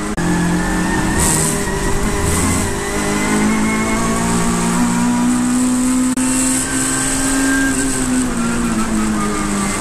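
Racing saloon car's engine heard from inside the cockpit. It lifts off and drops a gear under braking into a corner at the start, then revs rising steadily under full acceleration, and eases off again near the end.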